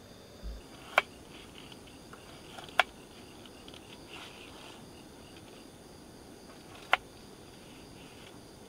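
Steady chirping of crickets and other night insects, with three sharp knife taps on a cutting board about a second in, near the three-second mark and again near the end, and soft scraping of the blade slicing food between them.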